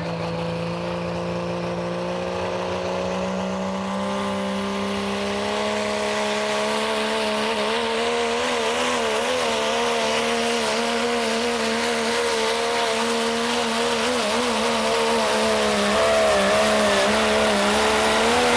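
Cummins-powered second-generation Dodge Ram diesel pickup at full throttle, pulling a truck-pull sled under heavy load. The engine's pitch climbs over the first several seconds, then holds high and wavers as the truck hops and bounces down the track, growing louder near the end.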